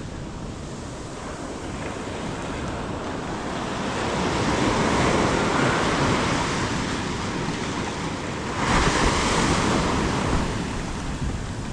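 Ocean surf washing onto the beach, swelling about four seconds in and again, louder, near nine seconds, with wind buffeting the microphone.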